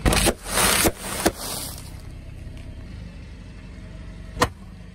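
Car tyre crushing bags of crunchy snacks: a loud crackling crunch of the plastic bags and their contents over the first second, then a sharp snap, over the car's steady low engine hum. A single sharp crack near the end.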